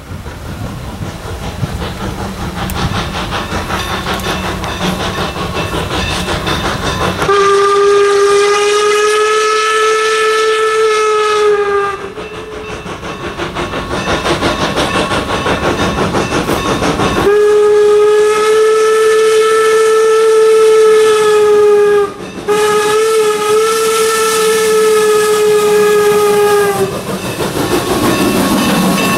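Norfolk and Western Class M 4-8-0 steam locomotive No. 475 approaching and sounding its steam whistle in three long blasts, the last two separated by only a brief break. Before the whistle, the beat of the working locomotive's exhaust grows louder as it nears.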